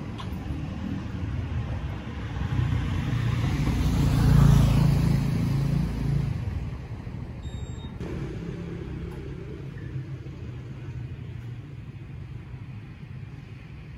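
Metal roller shutter door rolling up with a low rumble that swells to its loudest a few seconds in, then carries on quieter.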